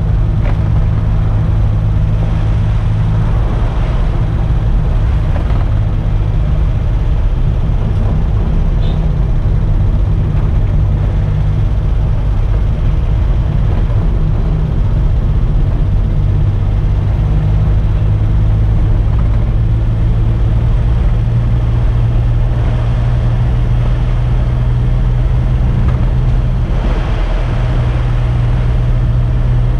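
Engine of a 1984 Daihatsu Hijet 1000 pickup running steadily under way, heard from inside the cab along with road noise. Near the end the engine note briefly breaks and changes pitch.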